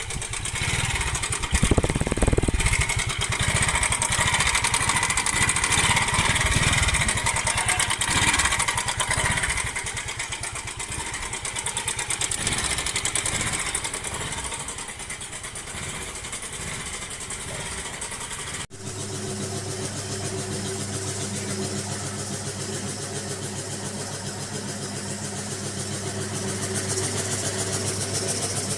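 Hero Maestro Edge scooter's single-cylinder engine running, rising a few times in the first part, in a video about timing chain noise. After a sudden cut about two-thirds of the way in, it idles steadily and evenly.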